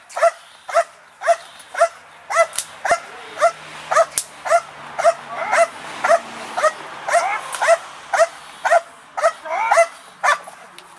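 A dog barking steadily at the helper hidden in the blind: the hold-and-bark of protection training. The barks come at about two a second, with a few quick double barks mixed in, and stop shortly before the end.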